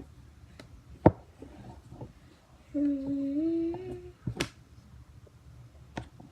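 A girl humming a short two-note phrase, stepping up once in pitch, between sharp knocks and clicks of things being handled while rummaging through a drawer.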